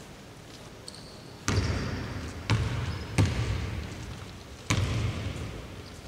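Basketball bouncing on an indoor court: four heavy thuds at uneven intervals, each followed by a short echo of the hall.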